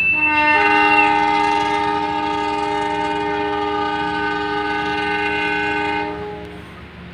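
Train horn sounding one long chord of several notes, a single high note first with the rest joining about half a second in, held for about six seconds before stopping; a steady hiss remains after.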